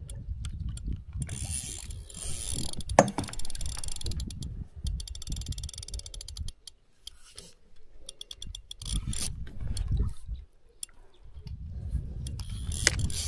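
Fishing reel clicking in quick ratcheting runs that come and go while a hooked carp is being played on the rod, over a low rumble.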